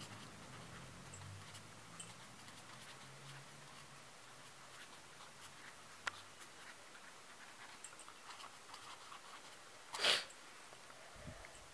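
Faint scratching of a felt-tip marker pen writing on paper, with small ticks throughout and a sharp click about six seconds in. A brief louder rush of noise comes about ten seconds in.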